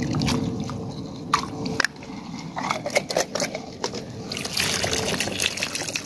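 Water sloshing and trickling in a plastic jar dipped in a muddy puddle, with light clicks of the jar. From about four seconds in, muddy water pours out of the tipped jar onto the ground.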